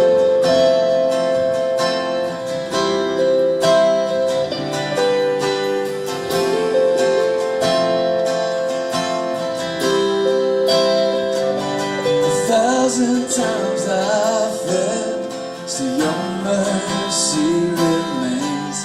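Instrumental intro of a worship song: acoustic guitar picking steady notes, with a wavering melody line coming in about twelve seconds in.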